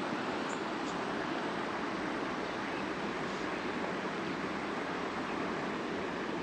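Steady rushing of a flowing stream, even and unbroken, with a couple of faint ticks near the start.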